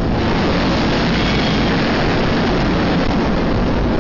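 Roller coaster ride heard from a rider's seat: a loud, steady rush of wind over the microphone mixed with the train running along the track.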